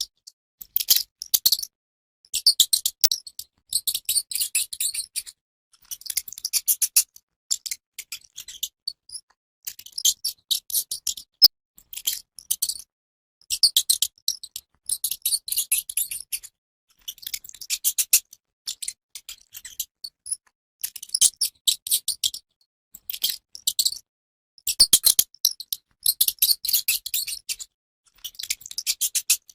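Mouse squeaking and chittering in bursts of rapid, high-pitched squeaks, each burst lasting about a second, repeating every second or two.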